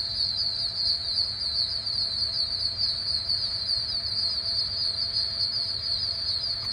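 Dense, steady, high-pitched chorus of calling insects and frogs, rapidly pulsing, with a low rumble underneath.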